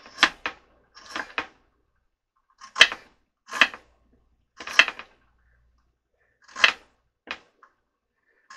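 Kitchen knife slicing carrots paper thin on a cutting board: about ten separate sharp cuts at an uneven pace.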